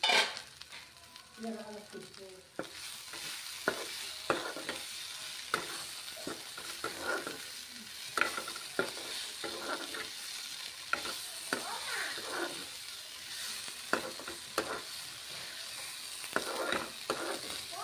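Dhekia (fiddlehead fern greens) sizzling in oil in a nonstick wok while a metal spoon stirs and scrapes them, with irregular clacks of the spoon against the pan. The sizzle sets in a little over two seconds in.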